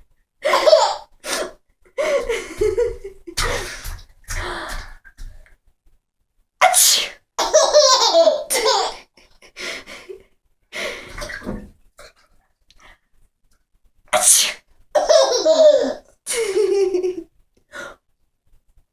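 A woman sneezing several times, each loud, sharp sneeze followed by bursts of a baby's laughter.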